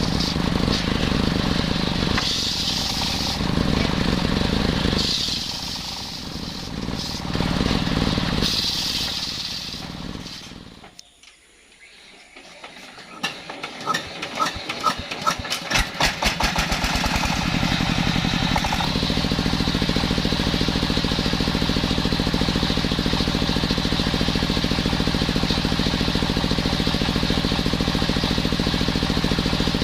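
Engine of a motor-driven circular wood saw, running in loud surges for about ten seconds. It dies away about eleven seconds in and is restarted, its firing pulses quickening over a few seconds. From about nineteen seconds on it settles into a steady, even run.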